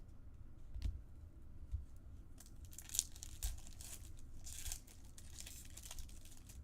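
A foil trading-card pack being torn open and its wrapper crinkled, with a few light taps of handling; the busiest tearing and rustling comes in the middle few seconds.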